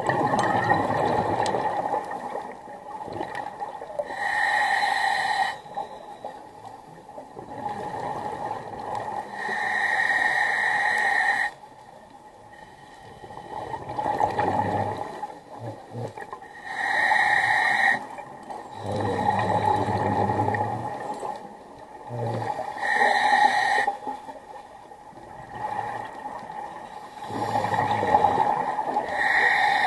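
Scuba regulator breathing underwater: a hissing inhale through the regulator alternating with a bubbling exhale, one breath about every six seconds, five breaths in all.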